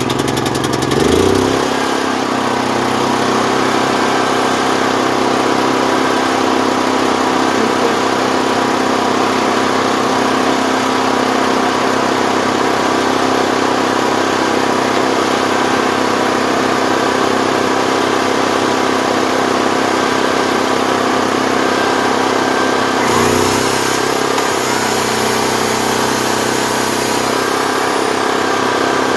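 Portable generator's engine, just started, rising in speed over the first second or so and then running steadily. Its note shifts briefly about 23 seconds in.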